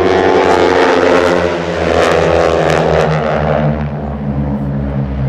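A formation of four North American T-6 Texans flying by low, their nine-cylinder Pratt & Whitney R-1340 radial engines and propellers giving a loud, rasping drone. It is loudest in the first three seconds and slowly fades after about four seconds as the formation passes.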